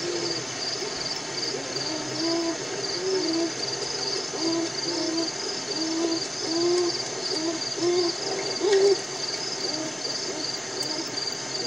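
American beavers vocalising: a string of short whining calls, about one a second, some bending up in pitch at the end.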